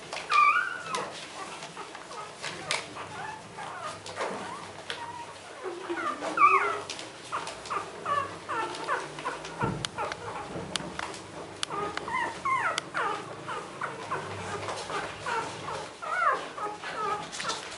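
A litter of young beagle puppies whimpering and squeaking in many short, high calls that bend in pitch, scattered throughout, while they nurse from their mother. A few sharp clicks are mixed in.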